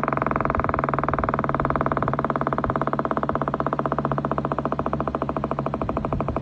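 Synthesized Federal Sign & Signal Thunderbolt 1000 siren, played back through laptop speakers. Its steady tone is chopped into rapid even pulses by the chopper, and the pulses spread slightly apart as the siren winds down, over a steady low hum.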